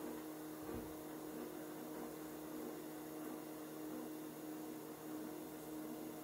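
Stepper motors of a CNC gantry with C-beam linear rails humming steadily as the axes creep: a low hum with a few fixed tones and a faint pulse repeating a couple of times a second.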